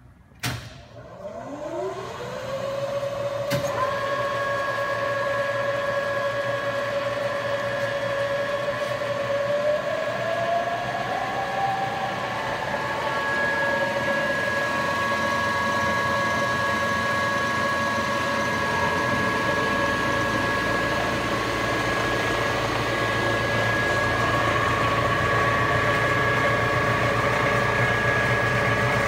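A Supermax YC-2VAS vertical milling machine's motor starts with a click from a control-panel button and whines up in pitch over a couple of seconds to a steady run. A second click follows, after which higher tones join. About ten seconds in the pitch climbs again and settles, as the infinitely variable speed is changed.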